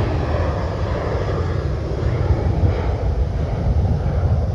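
Jet engines of a Southwest Airlines Boeing 737 at takeoff power, a loud, steady rushing noise.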